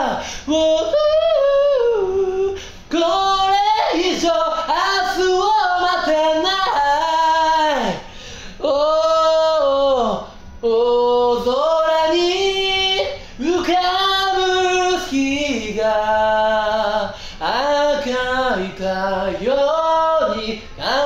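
A cappella singing, voices alone with no instruments, in melodic phrases of one to two seconds with short breaks between them.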